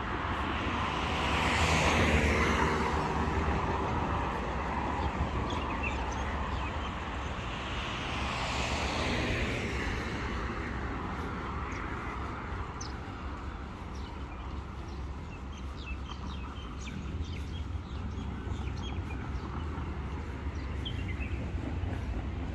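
Two cars passing on the road alongside, their tyre noise swelling and fading away, one about two seconds in and another about nine seconds in, over a steady low rumble of traffic.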